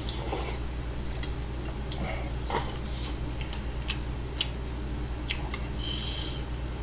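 Metal spoon clinking against a ceramic bowl of pork kimchi stew as it is eaten: several separate sharp clicks, with a short ringing clink about six seconds in.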